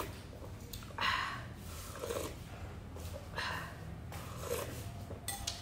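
Close-up eating sounds of a person eating rice noodles: three short slurps spaced a couple of seconds apart, with softer chewing between them.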